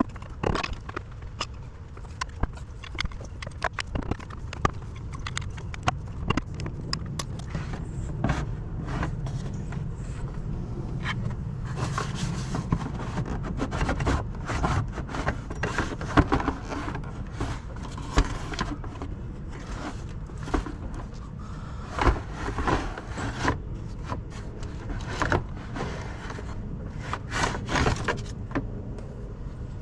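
Hand tools on metal: scattered clicks, clinks and scrapes of a ratchet and a large screwdriver working on the nuts that hold a fan clutch to its pulley, over a low steady hum.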